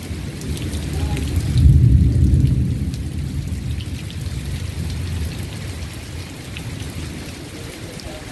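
Heavy rain pouring down in a storm, a steady hiss with many small drop ticks. A deep rumble swells under it about two seconds in and then fades.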